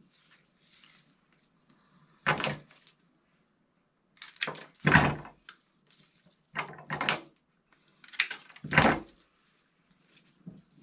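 Several short bursts of crisp rustling and snapping as a rose stem and its leaves are handled and worked by hand.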